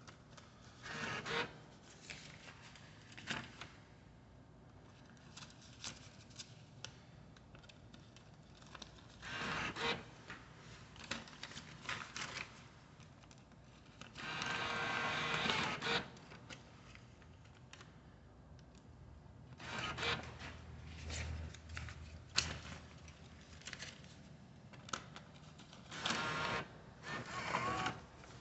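Intermittent rustling and clicking handling noises, with several louder noisy bursts of a second or two.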